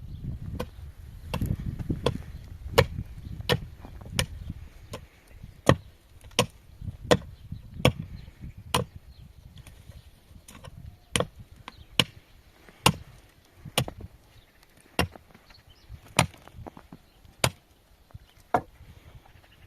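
A steady series of sharp wooden knocks, about one every 0.7 seconds at first and slowing to about one a second toward the end, with a low rumble under the first few seconds.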